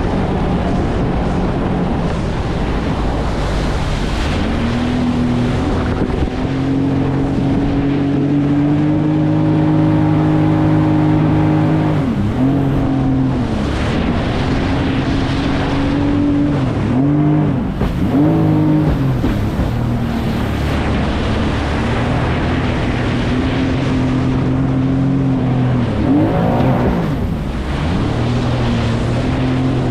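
Jet ski engine running at speed, its pitch dipping briefly and climbing back four times as the throttle eases off and opens again, over a steady rush of wind and water.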